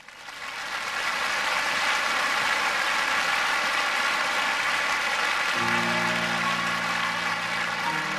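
Arena crowd applauding. About five and a half seconds in, slow sustained piano or keyboard chords begin: the intro of the skater's music.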